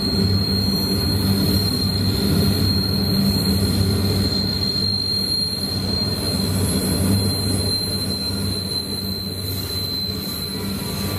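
Empty iron ore wagons rolling past on steel rails with a steady low rumble. Over it sits a thin, steady high-pitched squeal from the wheels on the curve.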